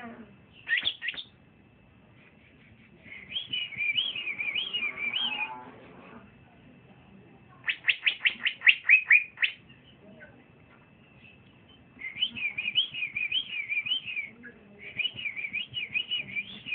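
Young male green leafbird (cucak ijo) singing in separate bursts. It warbles a phrase a few seconds in, then gives a rapid run of about eight sharp falling notes around eight seconds in, then two more warbled phrases in the last five seconds.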